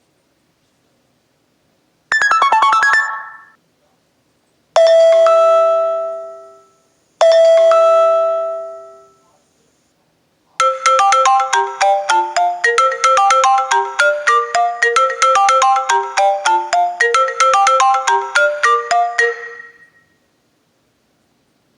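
iPhone ringtones and alert tones played one after another through a JBL Flip 3 Bluetooth speaker. A short, quick run of notes comes about two seconds in. Two ringing chimes that fade away follow a couple of seconds apart, then a fast, bright melody of many notes runs for about nine seconds before stopping.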